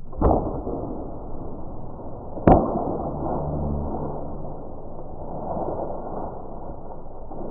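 Compound bow shot at a whitetail doe: a sharp crack about two and a half seconds in, the loudest sound, after a smaller snap near the start, over a steady low rustle.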